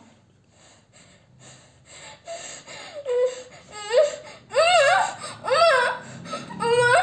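A young woman whimpering and crying: soft breathy sobs, then from about three seconds in, several loud wavering wails that rise and fall in pitch. The exorcist takes her wailing for a spirit (preta) coming up.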